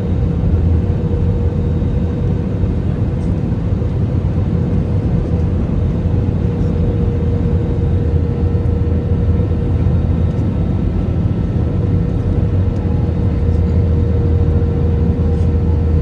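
Steady in-flight cabin noise of an Airbus A320neo with Pratt & Whitney PW1127G geared turbofans, in descent: a deep, even rumble of airflow and engines with a thin steady hum above it.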